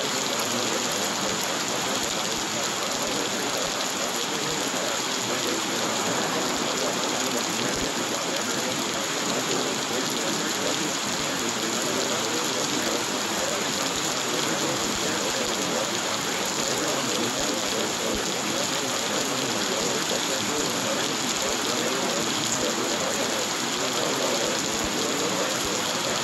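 Steady rain falling, an even, unbroken hiss of rain on a surface.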